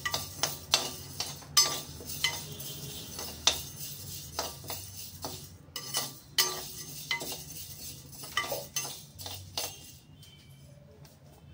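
Steel slotted spoon scraping and clinking against a kadai as coriander seeds, chana dal and urad dal are stirred while dry-roasting, in irregular strokes that stop about ten seconds in.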